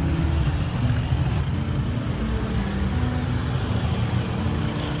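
Road traffic passing on a city street: a steady low rumble of vehicle engines and tyres.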